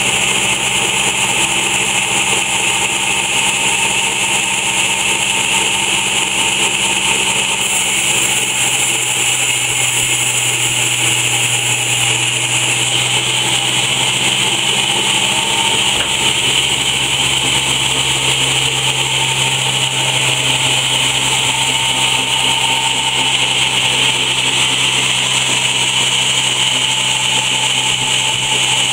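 Old log sawmill running steadily: a constant, loud machine hum with a high whine over it, never stopping or changing much in level.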